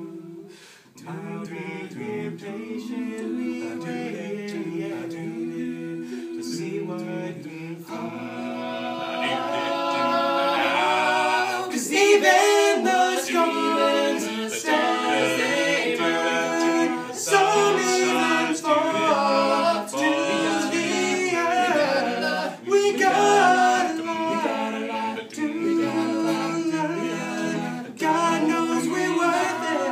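Male a cappella group singing in harmony, with held chords from the lower voices under the melody. The singing grows louder about eight seconds in and again around twelve seconds.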